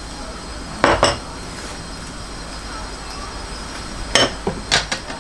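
A metal spoon and ceramic bowls clinking as they are handled on a counter: two quick clinks about a second in, then a few more in quick succession near the end.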